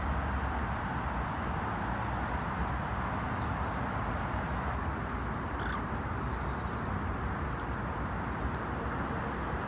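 Steady outdoor background noise, a constant hiss of distant traffic, with low wind rumble on the microphone and a few faint short bird calls.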